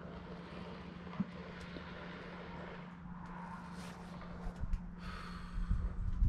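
A steady low hum under faint outdoor ambience. Irregular low bumps on the microphone come in over the last couple of seconds and grow louder.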